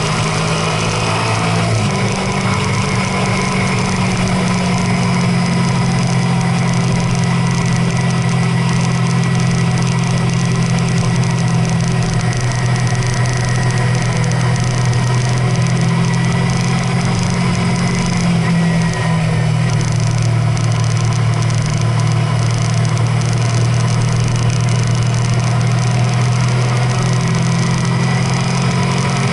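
A vehicle engine running steadily while driving, a continuous drone whose pitch shifts about two seconds in and again about two-thirds of the way through.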